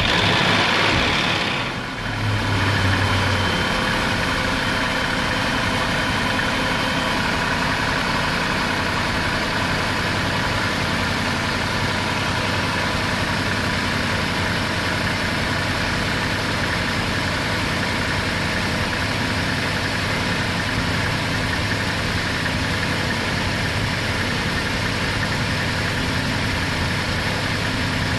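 Land Rover Discovery 3's 4.4-litre Jaguar V8 just after starting: for about the first two seconds it runs loud and rough with a knock, then settles into a steady idle. The owner says the knock comes only on a start after the engine has stood for about 30 minutes, and a restart straight after is fine.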